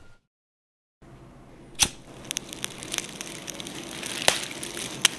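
Crackling fire sound effect: a low hiss with irregular sharp pops and snaps, starting after a second of silence, with a louder pop about two seconds in.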